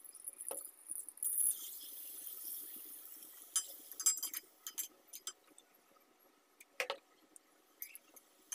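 Sliced onions going into hot oil in a metal wok and sizzling; the sizzle starts about a second in and dies down over a few seconds. Then scattered clinks and scrapes of a metal spatula against the wok, with one louder knock near the end.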